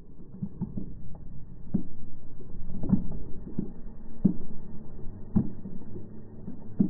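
Muffled murmur of a waiting outdoor crowd, with irregular dull knocks every half second to a second.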